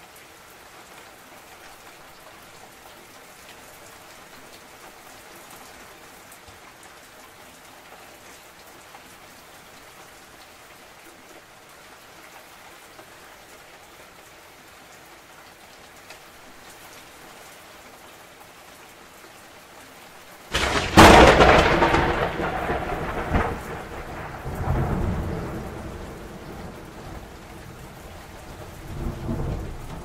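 Steady rain falling, then about two-thirds of the way through a sudden loud crack of thunder breaks in and rolls on as a rumble that slowly fades, swelling again briefly near the end.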